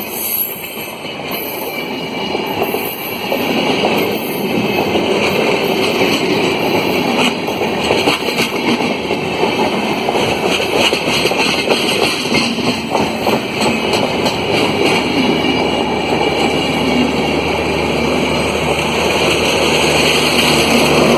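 Express passenger train rushing past at speed, a steady loud rush of noise with the wheels clattering over the rail joints.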